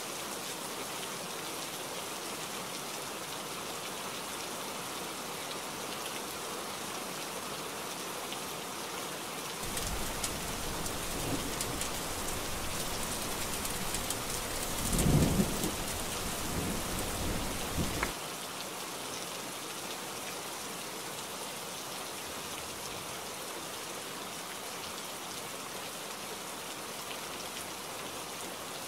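Steady heavy rain hissing throughout. About ten seconds in, a low rumble of thunder builds, peaks in a loud clap around the middle, and stops abruptly about eight seconds after it began, leaving only the rain.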